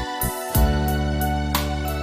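Instrumental ballad backing music: electric piano over a held bass line, with a soft beat of regular hi-hat-like taps.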